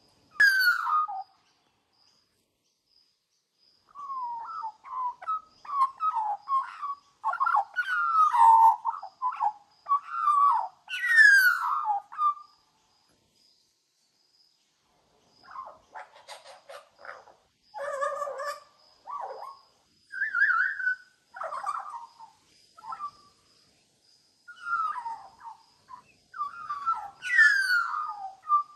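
Australian magpie singing: rambling warbled phrases with descending whistled glides, broken by pauses of a few seconds, and some harsher scratchy notes about halfway through.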